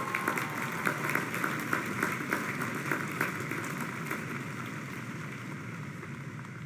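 Large audience applauding, a dense patter of many hands clapping that is strongest at first and gradually dies down.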